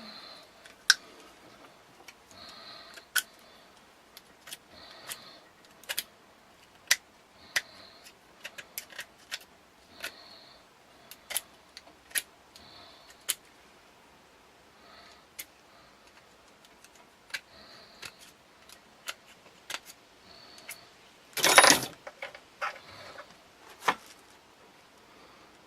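Small metallic clicks and ticks from handling a bent steel trigger wire against a bodygrip trap, with short scraping strokes as white paint is worked off the wire's end. A louder brief clatter of metal comes near the end.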